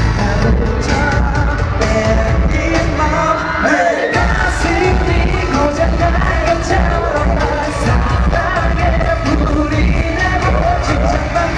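Live K-pop concert: the male vocal group singing over a loud backing track with a heavy bass beat. The bass drops out briefly about four seconds in.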